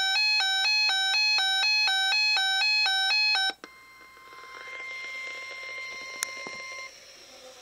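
Reecom R-1630 alert radio sounding its pulsing beep alarm, having activated on a tornado watch header. The beeping cuts off suddenly about three and a half seconds in, leaving a faint hiss.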